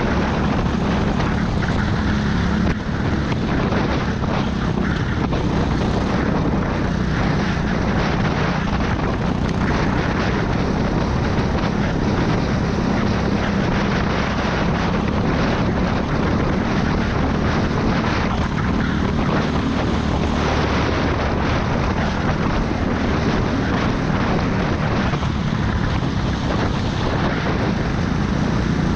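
Go-kart engine running at racing speed, heard from the kart's own onboard camera microphone, with other karts close by. A steady engine drone mixed with rushing air noise.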